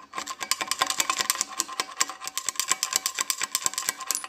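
Rapid metallic clicking and rattling, many ticks a second over a steady ringing tone, as a tool works the loose exhaust valve seat in the motorcycle's aluminium cylinder head. The seat has worked loose in its bore.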